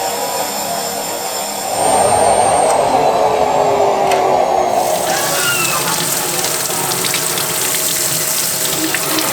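Vacuum cleaner running with a nasal aspirator attachment, a steady hiss of suction that grows louder about two seconds in.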